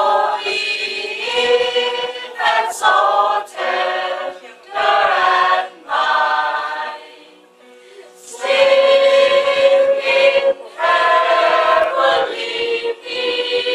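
Small choir of men and women singing a Christmas song together, phrase by phrase, with a short pause about seven seconds in.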